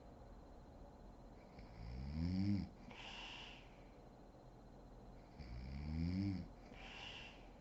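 A woman snoring in deep sleep: two snores about four seconds apart, each rising in pitch over about a second and followed by a breathy exhale.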